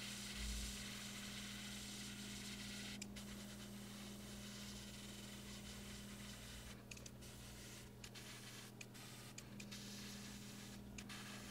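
Airbrush spraying paint in short passes: a faint hiss of air and paint that stops briefly several times as the trigger is eased off. A steady low hum runs underneath.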